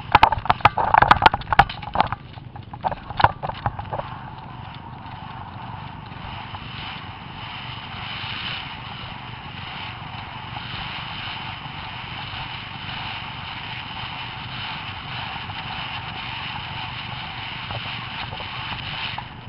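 Wind rushing over an onboard camera's microphone carried by a rider at a cross-country gallop, steady after a cluster of sharp knocks and rattles in the first few seconds.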